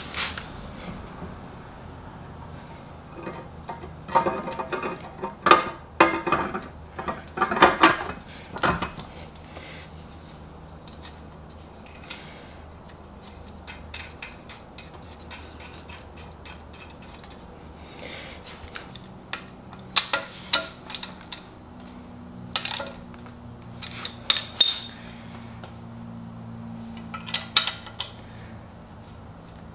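Metal clinks and clicks in scattered clusters as the exhaust header pipe and its flange are fitted by hand onto the exhaust-port studs of a 1981 Honda Goldwing GL1100 and the flange nuts are started. The busiest stretches come about four seconds in and again about twenty seconds in.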